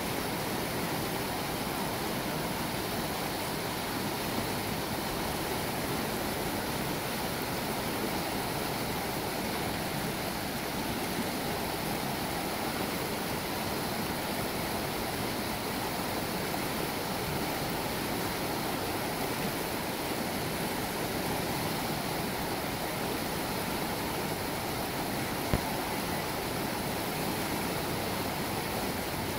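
Shallow river rushing steadily over rocks and riffles. A single brief tap or knock sounds near the end.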